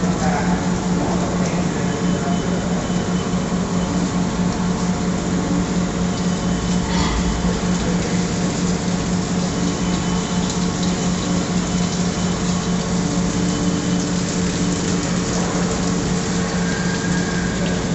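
CNC milling machine running its program: a steady machine hum with a constant low tone, with coolant flowing.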